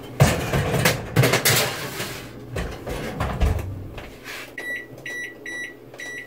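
Metal baking sheet of bread cubes clattering and knocking as it goes into the oven, with a heavy thud about three and a half seconds in. Then four short, high electronic beeps from a kitchen appliance, evenly spaced about half a second apart.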